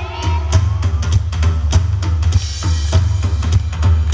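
Live band playing an instrumental break: drum kit keeping a steady beat with kick and snare over a heavy bass line, with a cymbal wash about halfway through.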